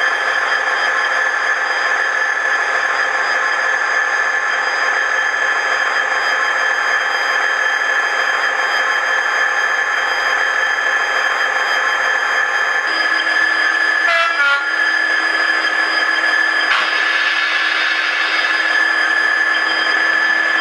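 Sound-equipped N gauge Dapol Class 66 model locomotive playing its diesel engine sound from a DCC sound decoder through the model's small speaker as it hauls its train, a steady drone with a high whine. A lower steady note joins about two-thirds of the way in, with a brief change in the sound just after.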